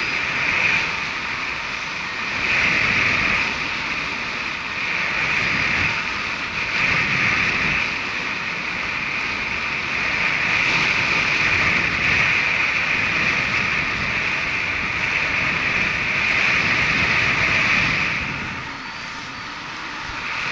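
Wind rushing over an action camera's microphone in paraglider flight: a steady hiss that swells and eases every few seconds, dipping near the end.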